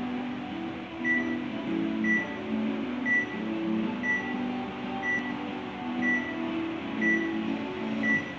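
Workout timer counting down to the start of a set: a short high beep once a second, eight times, over lower notes that change pitch every half second or so.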